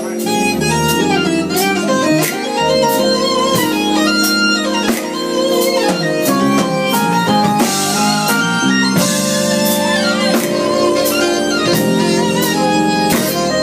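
Live band playing, with a keytar synth lead carrying a melody that slides and bends in pitch over sustained keyboard chords and a drum kit keeping a steady beat.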